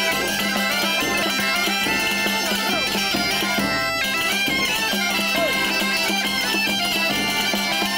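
Galician gaita (bagpipe) playing a lively folk tune over its steady drone, with accordion and tambourines in the group.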